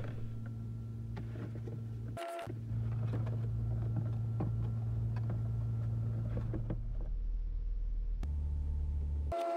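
Steady low electrical-sounding hum with faint scattered clicks, cut off briefly about two seconds in.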